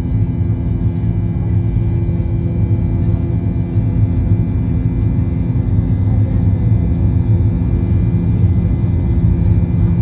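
Airliner engines heard inside the cabin during the climb just after takeoff: a loud, steady drone with a deep rumble and a few constant hums.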